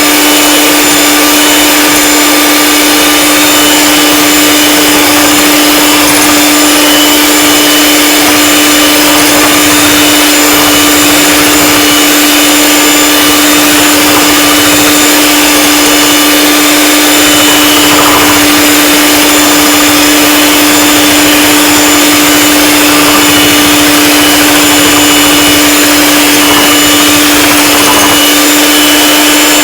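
Electric mixer running at one steady speed with a constant hum, beating egg whites and sugar into macaron meringue that has not yet stiffened.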